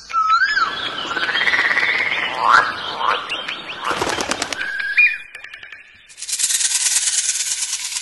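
Calls of several different birds cut one after another: a rising-and-falling whistle, then chirps and gliding notes, then a short whistle. From about six seconds in comes a loud, very rapid buzzing rattle.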